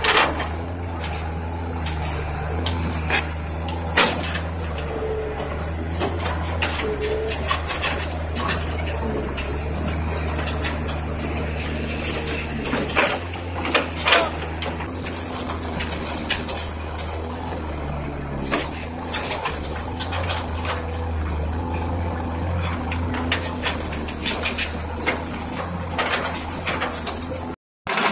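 Large Kobelco SK480 hydraulic excavator running steadily under load while its single ripper tooth tears into rocky ground. Sharp knocks and scrapes of rock against the steel tooth come at irregular moments over the drone.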